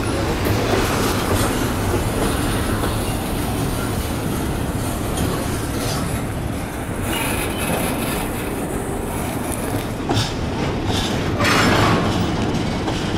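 Intermodal freight train rolling past with container well cars, a steady rumble of wheels on rail, with a run of sharp clicks and knocks about ten seconds in.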